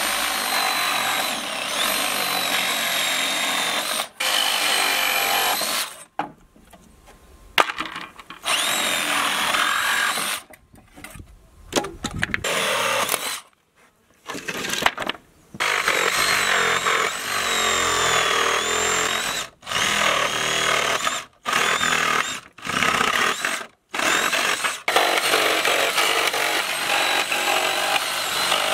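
Ridgid reciprocating saw cutting through the nails that hold pallet planks to the stringers. It runs in repeated bursts of a few seconds each, with short pauses between cuts, and its motor pitch wavers as the blade bites.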